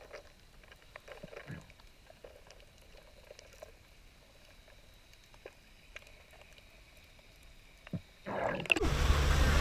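Mostly quiet, with faint scattered knocks and clicks. Near the end a loud, steady boat engine noise with a low hum cuts in.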